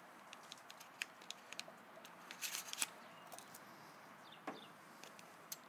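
Faint, scattered small metallic clicks and light knocks from a Mossberg 500/590 pump-action shotgun as its cartridge stop is pressed and shotgun shells are let out of the magazine tube one at a time. There is a small cluster of clicks about halfway through.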